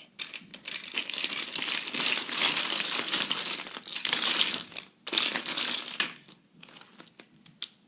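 Crinkling, rustling handling noise, like something crinkly being rummaged through and crumpled, for about six seconds with a brief break about five seconds in, then dying away.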